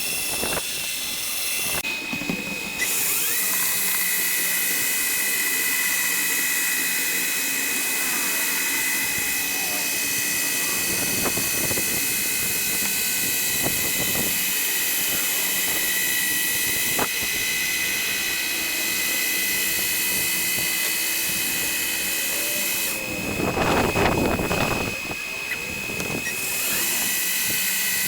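Power sander running steadily on deck boards with a high whine, with louder rasping stretches now and then, the loudest about 24 seconds in.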